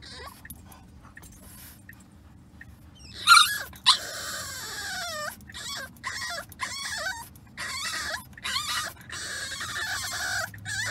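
French Bulldog puppy whining in a car, unhappy with the ride: a sudden loud cry about three seconds in, then a string of high, drawn-out whines, several falling in pitch. Steady low road noise from the moving car runs underneath.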